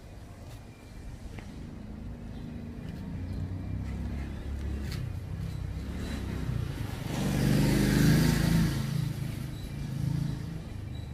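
A car driving past, its engine and tyres growing louder to a peak about eight seconds in, then fading.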